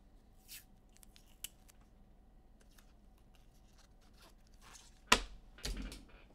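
Trading-card packs and cards being handled: faint rustling and small clicks, then two sharp snaps a little over half a second apart near the end.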